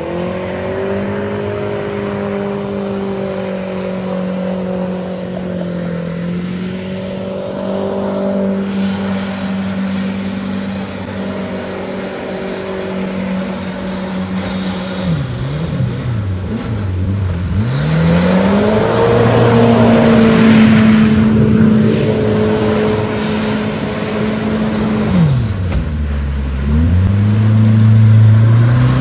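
Turbocharged Honda K-series four-cylinder engine of an aluminum jet boat running hard at a steady pitch, then, about halfway in, dropping off the throttle and climbing back several times as it revs up, loudest in the second half. Water spray hisses under the engine note.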